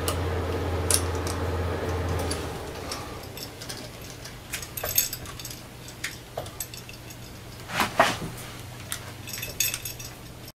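Light metallic clicks and clinks of small steel screws and a hand tool as screws are started into the aluminium Z-axis mounting block of a CNC Fusion mini mill conversion kit, with the sharpest clink about eight seconds in. A low hum runs underneath and drops away about two and a half seconds in.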